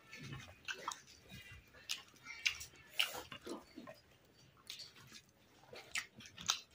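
Faint eating sounds: fingers mixing and squeezing rice on a plate, with scattered small clicks and soft wet chewing noises.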